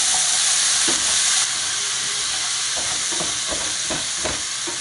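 Chopped garlic scapes sizzling in sunflower oil in a pan over full heat, with a spatula stirring and scraping through them several times, most of the strokes in the second half. The sizzle eases slightly about a second and a half in.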